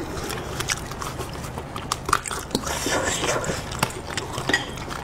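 Close-up eating sounds: wet chewing and mouth clicks as spiced sheep's-head meat is torn from the bone by gloved hands, with many short sharp clicks and smacks scattered throughout.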